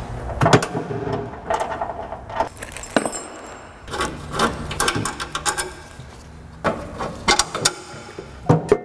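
Irregular clicks, clinks and knocks of loose bolts and metal hardware being handled and bagged.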